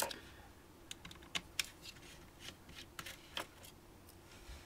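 Faint, scattered light clicks and taps from fingers handling a GPS navigator's exposed circuit board and plastic case.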